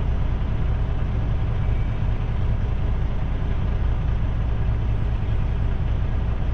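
Semi-truck's diesel engine idling steadily, a constant low rumble.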